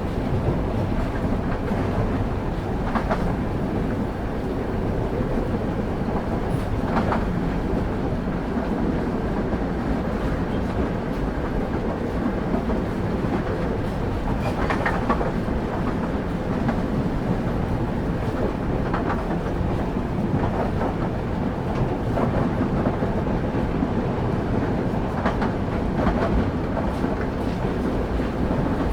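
Passenger train running along the line, heard from on board: a steady low rumble of wheels on rail, with a clack every few seconds as the wheels cross rail joints.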